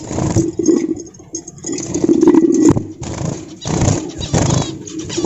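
Handling noise: a run of irregular knocks and clatter with rustling, loudest about two seconds in.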